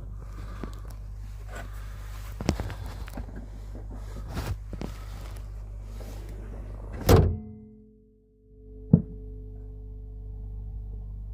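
Knocking from the SAAZ front shock-absorber struts of a Lada Vesta NG: several sharp knocks over a steady low hum, then one loud thud about seven seconds in that leaves a held tone, and another sharp knock about two seconds later.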